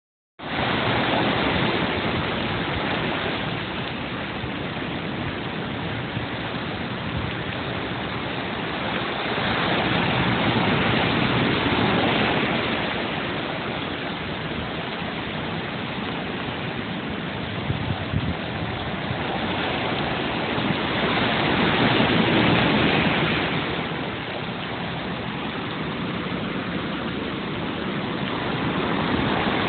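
Hurricane wind and rain, a steady rush of noise that swells and eases in gusts about every ten seconds.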